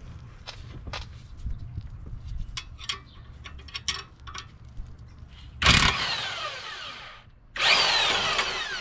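Impact wrench run in two bursts of about a second and a half, the first about five and a half seconds in and the second near the end, hammering at a stubborn front strut-to-knuckle bolt that will not let go while a wrench holds the nut. Before the bursts, light clicks of the tools being handled.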